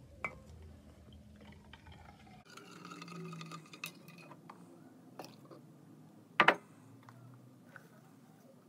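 Alum powder being measured and tipped into a ceramic mug of water, with light taps and clinks of the measuring cup and powder container, and one sharp double knock about two-thirds of the way through.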